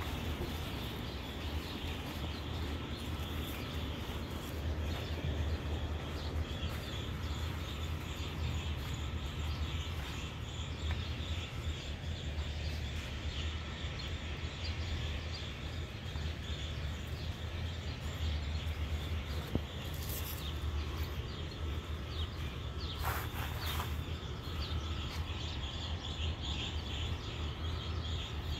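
Outdoor ambience: a steady low rumble under many faint, small bird chirps, with a couple of brief louder calls in the second half.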